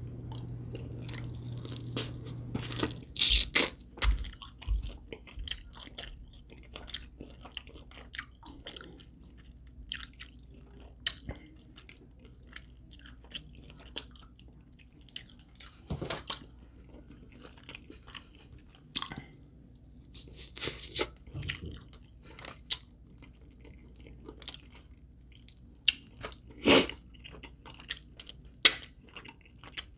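Close-up eating of chicken wings: bites and chewing with many irregular crunches, loudest about three seconds in and again near the end. A low hum stops about three seconds in.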